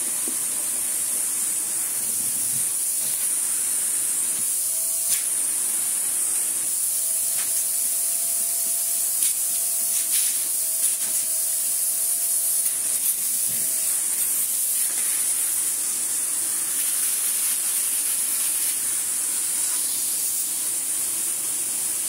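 A vacuum cleaner's hose nozzle sucking fine dust off a Vax Blade 4 cordless vacuum's cyclone and disc filter: a steady hiss of rushing air. A faint whistle comes and goes through the middle as the nozzle presses on the parts, with a few light knocks of the nozzle on the plastic.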